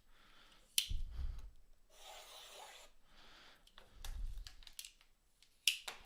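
A sealed box of basketball trading cards being handled and opened: cardboard and plastic wrap rubbing and scraping, with a sharp click about a second in and another near the end, and a couple of soft thuds.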